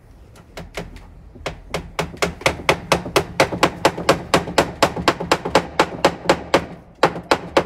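Hammer driving a 40 mm sprig nail into a sash window's wooden parting bead. The blows are sharp and repeated, spaced out at first and then about five a second, with a brief pause near the end before a few final taps.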